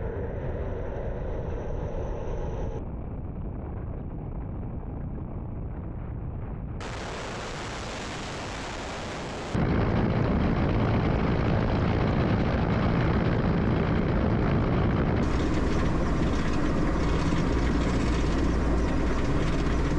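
Mi-8-type military helicopter in low flight: steady rotor and turbine noise, heard across several edited clips, in some close by outside the aircraft and at the end from inside the cockpit. It jumps louder about halfway through.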